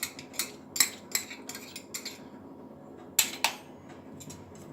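A spoon clinking and tapping against a bowl as spices are spooned in: a quick run of light clicks, then two louder clinks with a brief ring about three seconds in.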